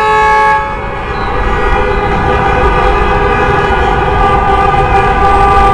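Many car horns honking at once in celebration: one horn blast cuts off about half a second in, then several horns are held down together in a steady, overlapping din over traffic rumble.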